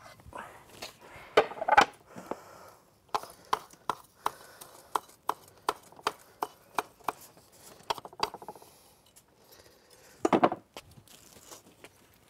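Chef's knife chopping fresh parsley on a wooden chopping board: a steady run of sharp knocks, about three a second, with a few louder knocks near the start and another near the end.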